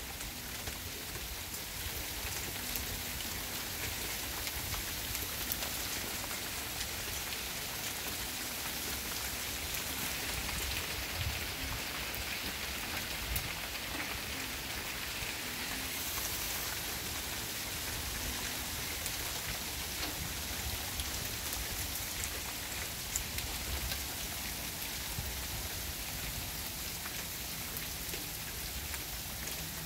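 Small hail falling steadily onto a garden, its gravel paths and a wooden deck railing: a dense, even hiss made of many small ticks and taps.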